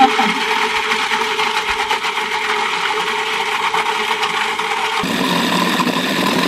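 Food processor motor running steadily at speed, its blades puréeing chicken liver pâté mixture; the tone changes abruptly about five seconds in.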